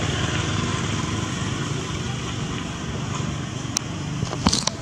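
Steady engine-like motor drone, with a few sharp clicks near the end.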